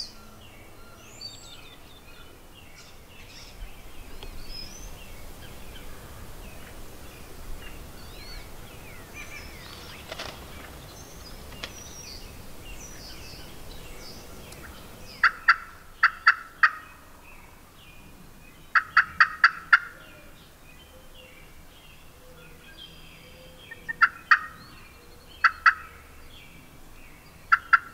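Wild turkey toms gobbling: several rapid, rattling gobbles in clusters through the second half, with faint songbird chirps before them.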